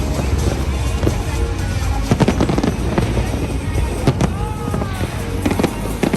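Fireworks going off in a rapid series of bangs and crackles over a low rumble, with music playing alongside.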